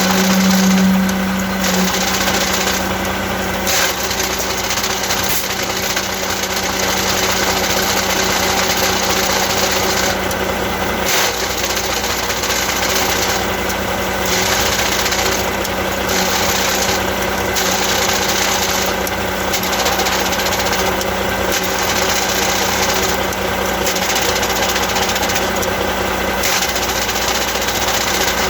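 Truck drivetrain running with the abnormal noise of an Eaton Easy Pedal Advantage heavy-duty clutch: a steady hum under a continuous mechanical rattle, whose higher, hissy part drops out briefly every few seconds.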